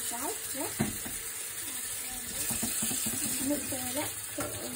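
Kitchen tap running into a stainless-steel sink while utensils are washed, a steady hiss of water, with one sharp knock a little under a second in.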